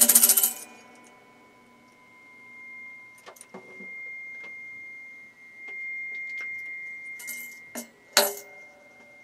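A tambourine is shaken hard for a moment at the start, then its jingles clink and tap as it is handled, with a sharp knock about eight seconds in as it is set down. A steady high tone holds underneath from about two seconds on.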